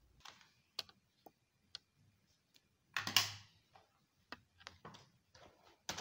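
Scattered small clicks and taps with rustling, the loudest rustle about three seconds in: objects being handled and set down on a tabletop.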